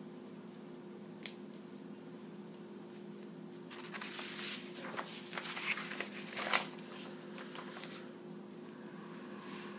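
Sheets of printer paper rustling and crackling as a page is picked up and turned over on a table, for about four seconds in the middle, with a sharp crackle near the end. A steady low hum runs underneath.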